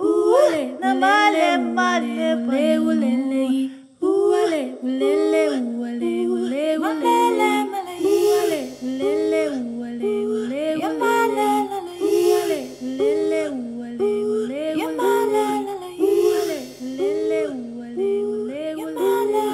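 Music: a melody that repeats a short rising-and-falling phrase over and over, joined by a low steady drone about eight seconds in.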